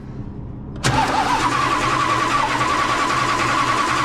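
1966 Plymouth Belvedere's starter cranking the engine for a compression test with a spark plug out. It starts suddenly about a second in and runs steadily with a whine.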